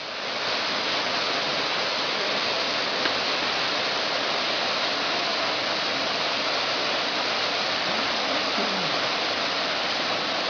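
Waterfall in full flow pouring into a pool: a steady, dense rush of falling water that fades in over the first second.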